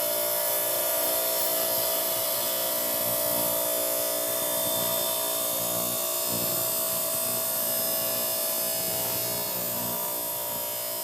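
Hi-Tech 10-inch diamond slab saw running steadily, its blade cutting through an agate nodule, with a constant motor hum and a high grinding hiss.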